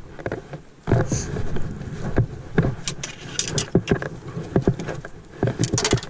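Vehicle moving over rough ground, heard from inside, with a steady running noise and many irregular knocks and rattles.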